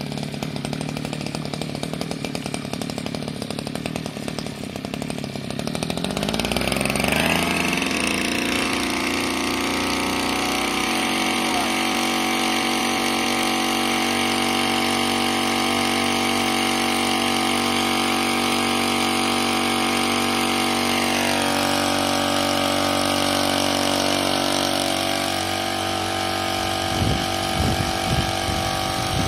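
Small petrol engine of a backpack power sprayer running. It runs at low speed for the first few seconds, revs up about six seconds in, then holds a steady high speed while spraying, dipping slightly in pitch about two-thirds of the way through. A few low thumps come near the end.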